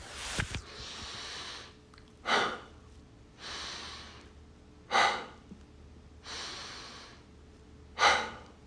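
A person breathing deeply three times, about every three seconds. Each breath is a soft breath of about a second followed by a short, forceful, louder one.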